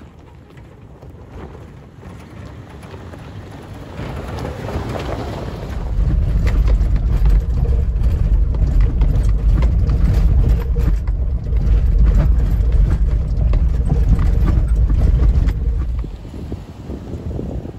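2018 Toyota 4Runner TRD Off-Road driving slowly over a rocky dirt trail, tyres crunching over loose stones with many small clicks and knocks. The sound grows over the first few seconds and becomes a heavy low rumble from about six seconds in, easing off near the end.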